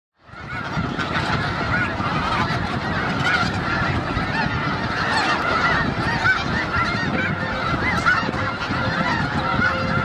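A large flock of snow geese calling all at once: a dense, unbroken chorus of overlapping short, high honks. It fades in over the first second.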